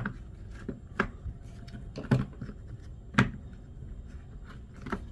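Plastic housing of a corded DWT electric screwdriver being handled on a tabletop as its cover half is lifted off: about five short clicks and knocks, the loudest about two and three seconds in.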